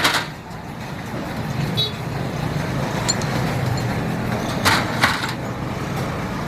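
A steady low engine hum, with a couple of sharp clicks a little past the middle.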